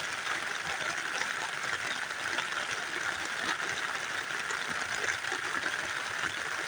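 Steady rain pattering on a tent, heard from inside, with frogs calling in the background as a steady high chorus.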